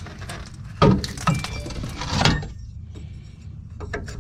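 A wrench clinking and knocking against metal while an air line fitting is loosened on a truck's air dryer: three sharp clanks, about one, one and a half, and two seconds in, over a low steady hum.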